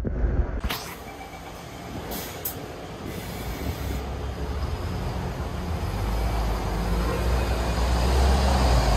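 MAN NG363F articulated bus's diesel engine pulling away from the stop and driving past, the low rumble growing steadily louder over the last few seconds. A couple of brief high hisses about two seconds in.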